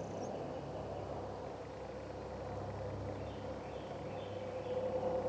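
Wild turkey gobbler in full strut, spitting and drumming with a low hum, against steady field ambience with a few faint bird chirps about halfway through.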